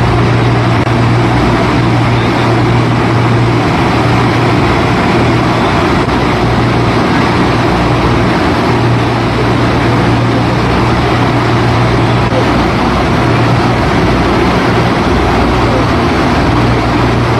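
Engines of a long row of moored water-pushing boats running steadily together, a constant low hum over the rush of churning river water, as they drive floodwater downstream.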